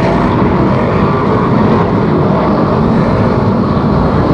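V8 engines of BriSCA F1 stock cars running at race speed, a loud, steady drone of several cars on track together.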